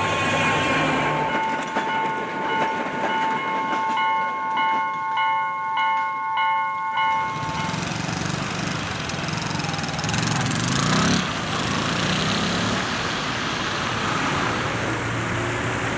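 Level-crossing warning bell ringing in steady pulses, a bell-like chime broken by short regular gaps. It stops about eight seconds in, and a steady rushing rumble of passing vehicles follows.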